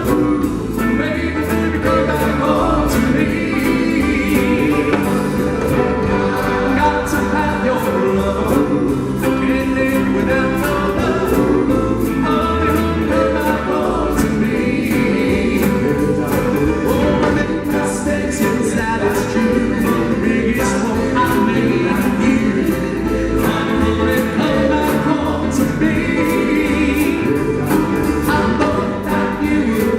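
A doo-wop vocal group singing a song live in harmony, with a lead voice over backing vocals and a band accompanying on a steady drum beat.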